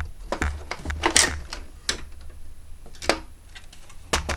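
Irregular clicks, clacks and a short scraping clatter of plastic and metal parts of a set-top box being handled and pried apart by hand.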